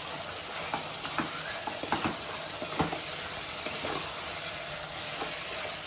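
Chicken pieces with onion, tomato and green chillies sizzling in a pan while a wooden spatula stirs them, with a few short scrapes and knocks of the spatula against the pan.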